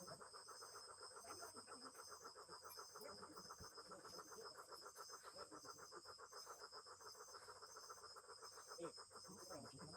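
Faint chorus of calling animals: a fast, steady pulsing of about ten pulses a second over a continuous high-pitched trill, with faint voices in the background.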